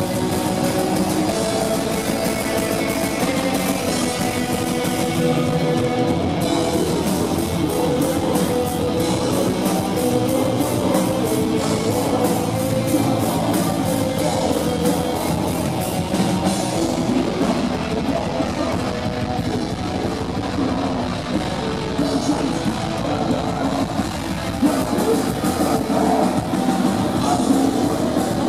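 Heavy metal band playing live: electric guitar, bass guitar and drum kit, heard from the audience. The drumming turns fast and even about six seconds in.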